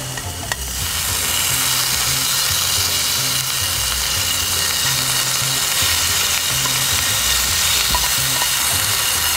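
Pork and red pepper strips sizzling in a small camping frying pan over a gas stove, a steady hiss that starts about half a second in and holds.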